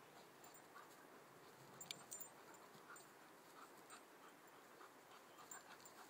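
Faint sounds of a young German Shepherd and an English Springer Spaniel puppy playing, with light panting and scattered soft short sounds. There are a couple of sharper ticks about two seconds in.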